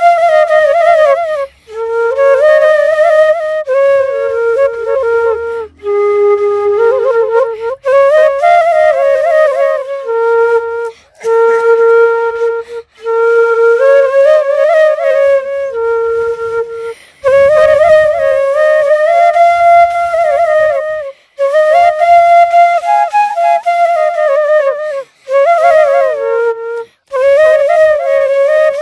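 Solo flute playing a slow melody in short phrases, each a second or two long, with brief breaths between them.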